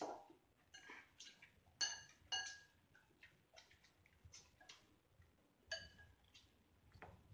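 Chopsticks clinking against a ceramic bowl while eating noodles: small scattered clicks and three ringing clinks, two about two seconds in and one near six seconds.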